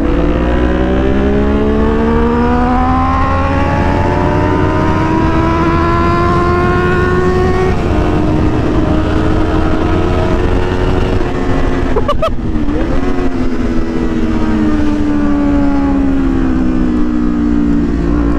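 Kawasaki Ninja 400 parallel-twin engine pulling hard, its note climbing steadily for about eight seconds before dropping to a lower, steadier pitch. About twelve seconds in there is a brief click and dip in the note, and the note then slowly falls as the bike eases off. Wind rumbles on the microphone underneath.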